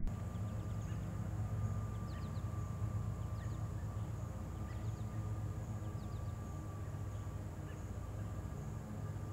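Outdoor ambience: a steady low hum with small birds chirping now and then, short high falling chirps scattered through.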